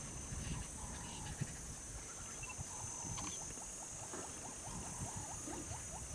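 Savanna bush ambience: a steady high-pitched insect drone, with a run of short repeated calls at about four a second from a small animal, and scattered low thumps.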